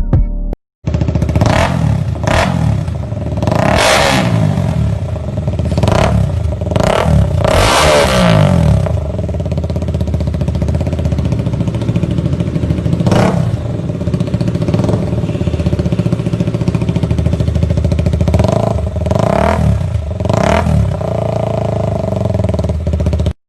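A 200cc single-cylinder motorcycle engine running through an aftermarket exhaust. It idles and is blipped repeatedly in short revs, with most of the revs in the first nine seconds and a few more near the end.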